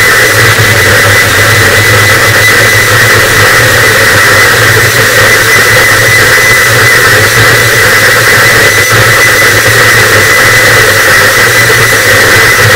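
Harsh noise wall: a loud, unchanging wall of distorted static. It has a steady low rumble band and a harsh, bright band topped by a thin steady whine, with hiss above.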